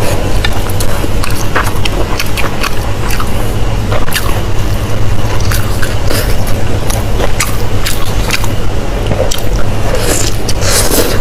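Close-miked chewing and biting of pork intestine and sausage: irregular wet clicks and squelches from the mouth, over a steady low hum.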